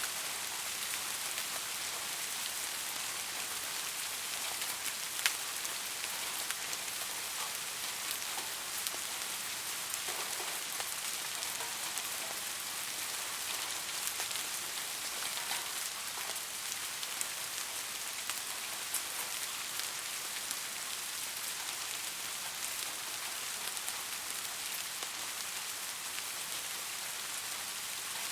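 Steady rain falling, an even hiss with scattered sharper drop impacts.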